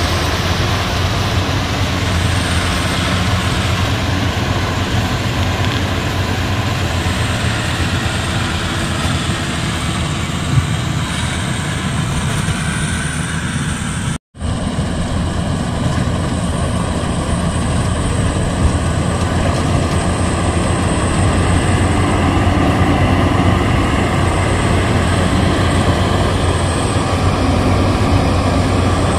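Maxxi Bimo Evo Xtreme rice combine harvester working under load, its engine and threshing machinery making a steady, loud drone. The sound drops out for an instant about halfway through.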